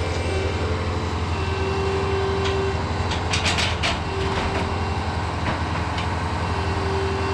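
Tractor engine running steadily at a low hum, with a faint whine coming and going and a brief rattle about three and a half seconds in.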